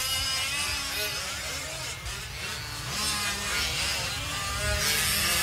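Several 5th-scale RC trucks' small two-stroke gas engines buzzing together, their pitch rising and falling as they rev and lift off around the track.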